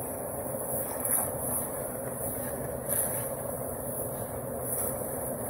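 Engine-driven portable concrete mixer running steadily, its drum turning. A couple of knocks and scrapes from shovels and buckets about a second and three seconds in.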